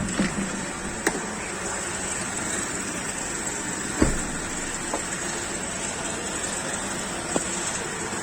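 Steady running noise of a Honda City car with a handful of short, sharp clicks from its dashboard, the loudest at the start and about four seconds in: the recurring dashboard rattle, which the owner likens to two steel parts touching each other.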